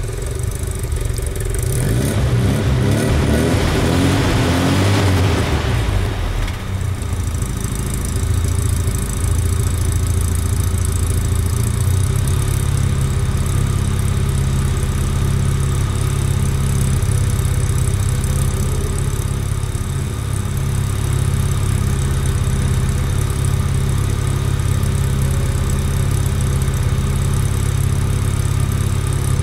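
Opel Manta GSI engine and exhaust revved briefly a couple of seconds in, rising in pitch, then dropping back to a steady idle while its idle speed is being set.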